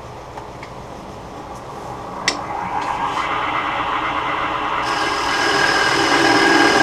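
A click about two seconds in, then a Laguna Revo 12/16 wood lathe spinning a wooden disc while a carbide turning tool cuts into its centre hole, the cutting noise growing steadily louder toward the end.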